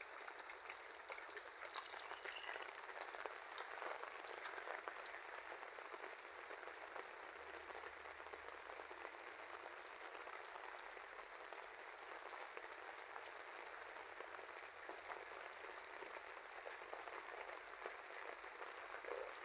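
Heavy rain falling steadily: a faint, even hiss of drops hitting surfaces.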